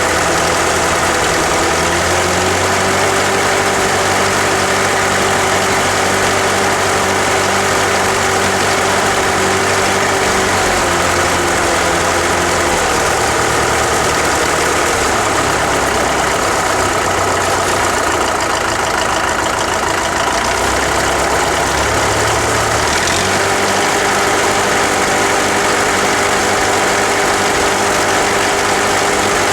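Farmall diesel tractor engine running steadily near idle, with sheet metal and emblems vibrating. Its speed dips slightly a couple of seconds in, again around the middle, and comes back up about three-quarters of the way through.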